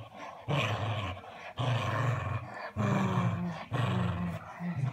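Cocker spaniel play-growling while tugging at a rope toy: five low growls of about a second each, with short breaks between them.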